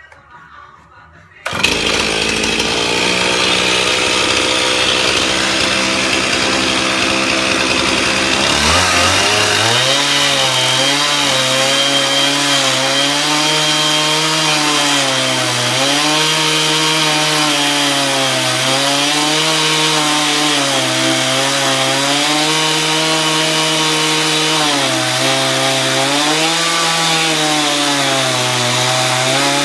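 Gas chainsaw cutting lengthwise through a thick timber beam, making a tenon cheek cut. It comes in suddenly at high revs about a second and a half in. A few seconds later its pitch drops as the chain bites into the wood, then rises and falls as the saw works under load through the cut.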